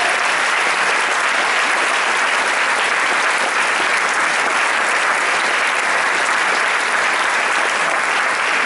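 Sustained applause from a theater audience, steady and even throughout.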